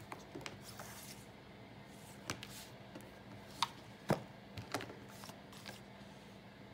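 Books being handled and laid on a wooden floor: a few light, separate taps and paper rustles as paperback picture books are moved and set down, over a faint steady hum.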